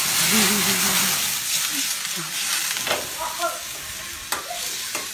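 Squid frying hard in a wok over a gas flame, a loud sizzling hiss as the pan flares up, easing after about two seconds. A few sharp knocks are heard in the second half.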